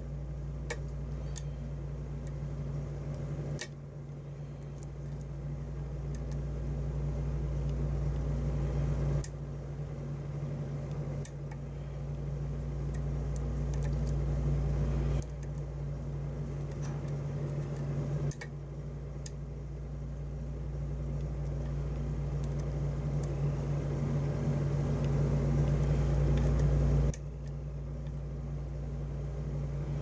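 Steady low hum that slowly swells and drops back suddenly several times, with faint scattered clicks of a lock pick and tension wrench working the pins inside a lock cylinder.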